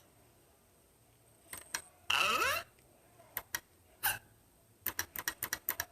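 Plastic clicks of a smoke detector's buttons being pressed: a few scattered clicks, then a fast run of clicks near the end as the button is jabbed over and over in a failed attempt to switch the detector off.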